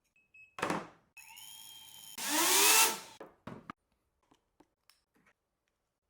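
Small FPV drone motors spinning up with a rising whine, loudest for about a second, then stopping, after a short high beep near the start.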